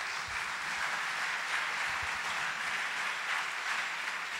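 Congregation applauding, a steady mass of clapping.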